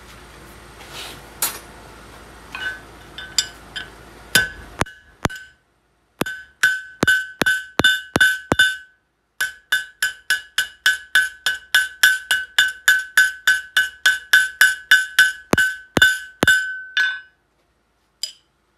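Blacksmith's hand hammer striking hot steel on an anvil, about three blows a second, each with a clear ringing anvil tone, while drawing out the tapered shank of a forged nail. A few lighter taps come first, and the blows pause briefly about nine seconds in.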